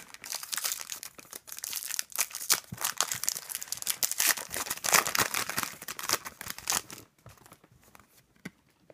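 Foil trading card pack wrapper being torn open and crinkled by hand, a dense crackling that stops about seven seconds in.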